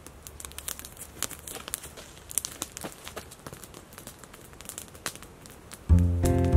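Light, irregular crinkling and crackling clicks. Background music with a steady beat starts near the end.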